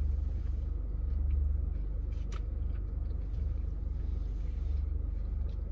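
Steady low rumble inside a car cabin, typical of the car's engine idling, with one sharp click about two and a half seconds in.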